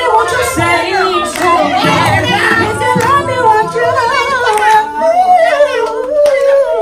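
A performer singing into a microphone through a PA, in wordless vocal runs with music behind, holding a long gliding note near the end.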